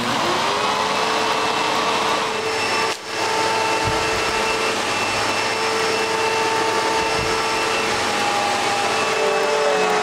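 Hoover Legacy upright vacuum cleaner switched on. Its motor spins up with a rising whine, then runs steadily as it is pushed over carpet to test the newly fitted brush-roll belt.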